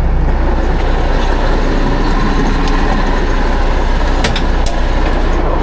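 A large engine running steadily: a continuous deep rumble with a few faint clicks over it, typical of a fire truck's engine.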